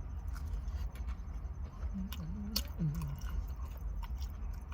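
A person chewing fried chicken tenders, with scattered small wet clicks of the mouth.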